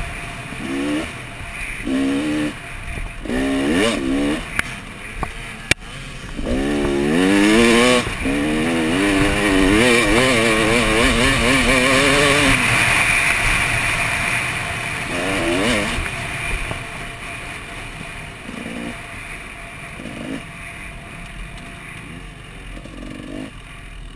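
2014 KTM 300 XC two-stroke dirt bike engine revving in short bursts on the throttle, then held at high revs for several seconds as the bike accelerates, easing off to a lower, quieter run for the last several seconds.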